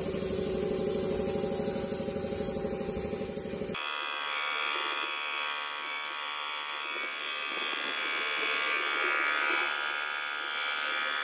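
Paint spray gun and its compressed-air supply at work while a motorcycle fuel tank is sprayed. A steady buzz runs for about the first four seconds, then switches abruptly to a steady, higher hiss.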